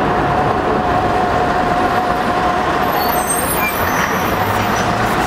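Busy city street traffic: heavy vehicles such as buses and trucks running past, a steady noise with a constant engine whine, and a few faint high squeaks about three seconds in.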